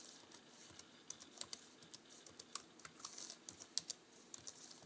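Faint, irregular clicking of computer keyboard keys as an email address is typed, several keystrokes a second with short pauses.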